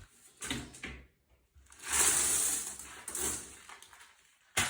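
Shards of a shattered tempered-glass shower door being scraped and shuffled in a cleanup, in two rustling passages, with a sharp knock near the end.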